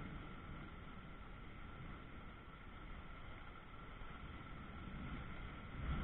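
Steady rain of a thunderstorm falling, a constant hiss with a faint steady high tone under it; a low rumble swells right at the end.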